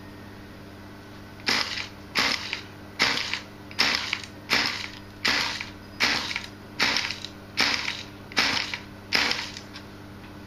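A rhythmic mechanical rasping from the rebuilt model diesel-electric's chassis: about twelve short, sharp bursts, one roughly every three-quarters of a second, starting about a second and a half in. A steady low hum runs underneath.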